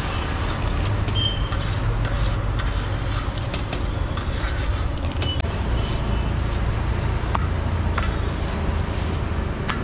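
Flat metal spatula scraping and tapping on a large iron tawa as chole are mashed and stirred, a run of sharp metal clicks and scrapes with a brief ring now and then. Under it, a steady low rumble of traffic.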